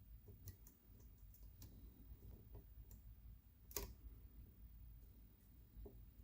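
Faint, sparse clicks of a lock pick working the sidebar sliders inside a Mauer NW4 padlock, with one sharper click about two-thirds of the way through.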